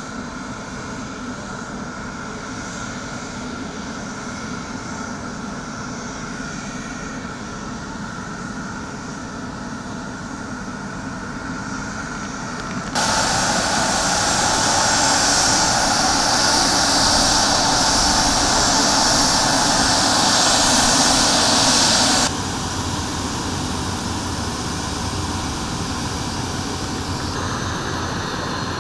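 Turbofan engines of a CRJ900 regional jet running as it taxis: a steady whine and rush. About halfway through it jumps abruptly louder and hissier, then drops back just as abruptly some nine seconds later.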